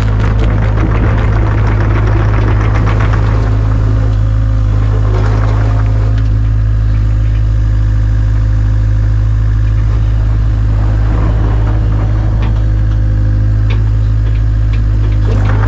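Kubota KX057-4 mini excavator's diesel engine running at a steady speed close by, with some clatter in the first few seconds and a few light knocks near the end as the boom and bucket work.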